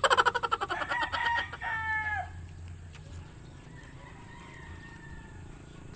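A rooster crowing loudly, a rough call that ends in a downward slide about two seconds in, followed by a second, fainter crow.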